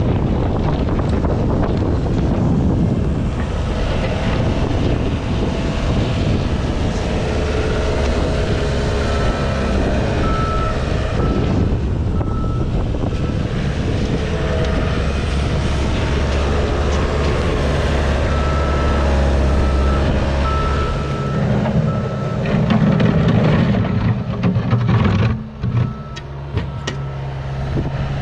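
Diesel heavy equipment engine running and working, with a reversing alarm beeping at a steady pace, first for a few seconds about a third of the way in and again for much of the second half.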